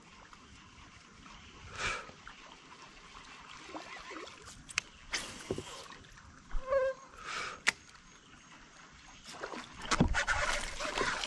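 Kayak paddling: a paddle blade swishing through the water, with water sloshing against the hull and a few light knocks. The water noise grows louder near the end.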